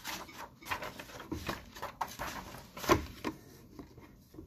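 Sheets of printed paper rustling and crinkling as a page of a paper packet is turned over and flattened, loudest about three seconds in, then quieter near the end.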